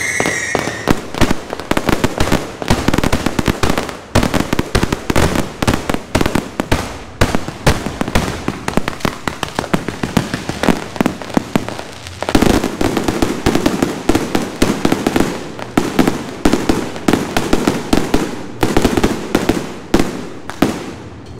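Aerial fireworks in a dense barrage: many sharp bangs and crackles a second with no gap, dipping briefly twice and cutting off suddenly near the end.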